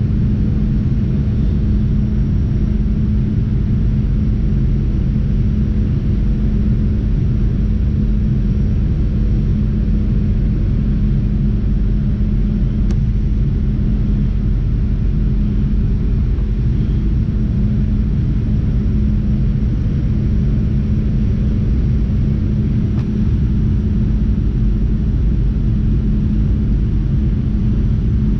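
Cabin noise of a Boeing 737-900ER on final approach, heard at the window seat: a steady low rumble of its CFM56-7B turbofan engines and the airflow, with a constant drone tone.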